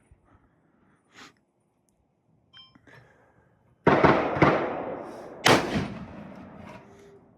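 Two loud gunshots, the first about four seconds in and the second about a second and a half later, each followed by a long echoing decay. There are a few faint clicks before them.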